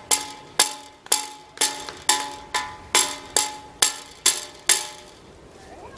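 Metal struck with a stick again and again: sharp clanks about two a second, each ringing briefly with a bell-like tone. The strikes stop about five seconds in.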